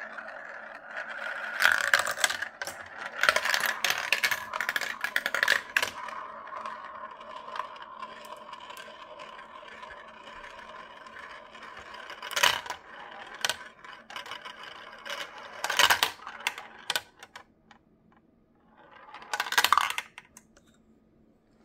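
Marbles rolling around translucent plastic marble-run funnels and spirals. A steady, ringing rolling sound fills the first half and fades, broken by sharp clacks and rattles as marbles drop through the plastic track pieces: a cluster in the first few seconds, then single bursts about halfway through, past three-quarters, and near the end.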